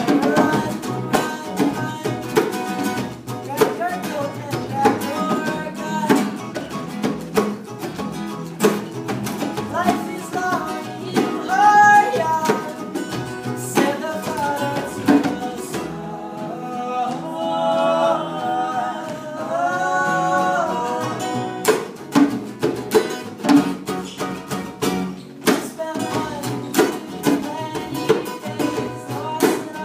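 Live acoustic band music: acoustic guitar picked and strummed, with a wavering lead melody rising over it in the middle.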